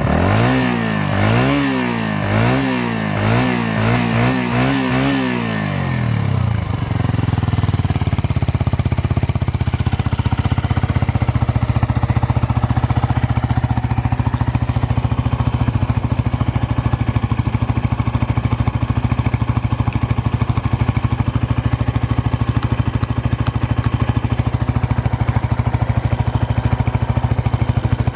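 Suzuki Grasstracker's single-cylinder engine through an aftermarket Supertrapp 4-inch full exhaust, blipped quickly several times for about the first six seconds, then settling to a steady idle. It runs without unusual noises.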